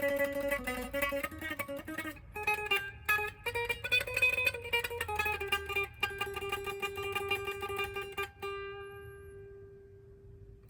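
Gibson 1959 Les Paul Standard Murphy Lab reissue electric guitar on its neck (front) pickup, playing quick single-note lead lines that end on one held note, which slowly fades away.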